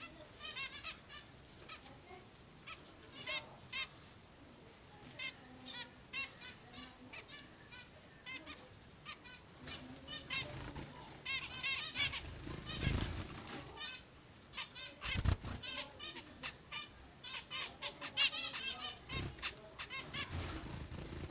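Zebra finches calling: many short, high, nasal chirps that come in quick clusters and keep going, with two low thumps about halfway through.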